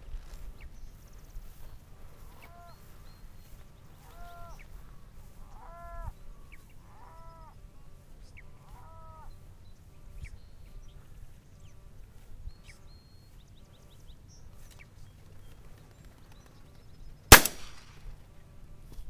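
A single shotgun blast about seventeen seconds in, the loudest sound by far, as the hunter shoots over the pointing dog. Earlier, in the first nine seconds, come about six short calls spaced roughly a second apart, each rising and falling in pitch.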